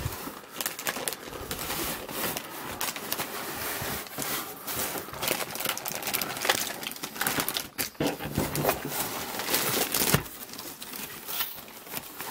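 Irregular crinkling and crackling of a clear plastic bag wrapped around a toy car, with rustling cardboard and paper, as the contents are lifted out of an old toy box.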